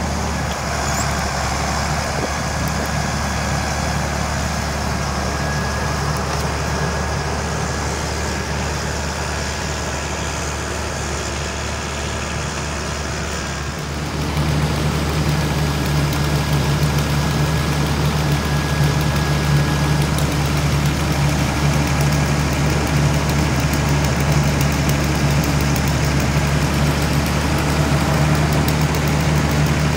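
Diesel engine of a truck-mounted log loader running steadily, a low continuous hum. It turns louder and deeper about halfway through.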